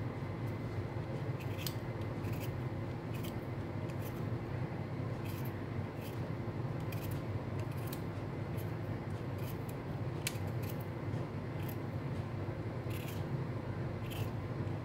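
Vegetable peeler scraping the skin off a raw beetroot in short strokes, about one or two a second, over a steady low background hum.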